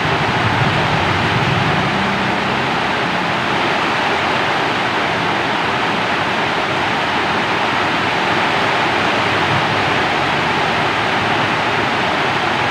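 Steady heavy rainfall, a dense even hiss, with a low rumble of thunder dying away in the first few seconds.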